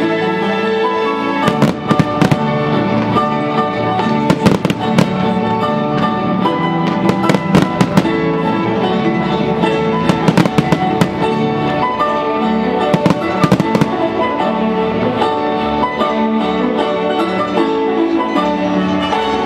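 Fireworks shells bursting in quick clusters of sharp bangs every few seconds, over steady loud music.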